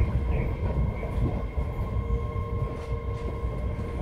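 MBTA Red Line subway car heard from inside the cabin: a steady low rumble with a constant hum of a few high steady tones from the car's running equipment.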